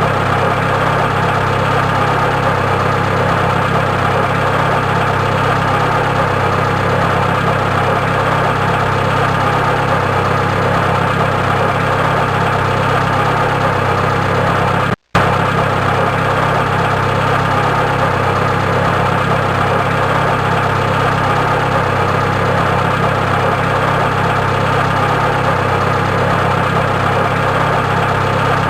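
Car engine idling steadily, presented as an idle problem. The sound drops out for a split second about halfway through.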